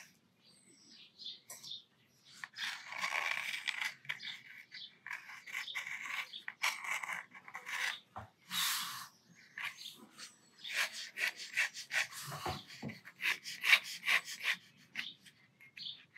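Steel dip-pen nib scratching across watercolour paper, in separate ink strokes and drags with short pauses between, and a run of many quick short strokes about two thirds of the way in.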